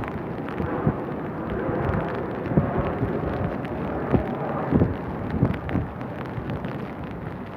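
Rain and wind noise, with wind buffeting the microphone in irregular low thumps.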